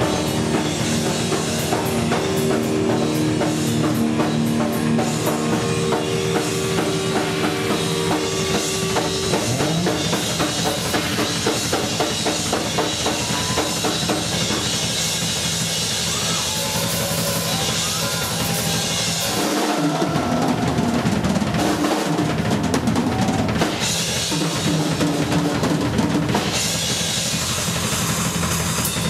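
Heavy metal band playing live, the Pearl drum kit to the fore with fast bass drum and cymbals. Held notes from the other instruments ring over the drums for the first several seconds.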